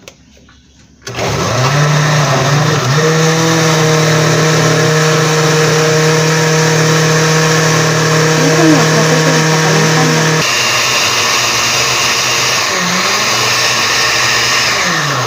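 Countertop blender motor starting about a second in and running steadily at speed, liquidizing onion, garlic and water. Its pitch falls as it winds down at the very end.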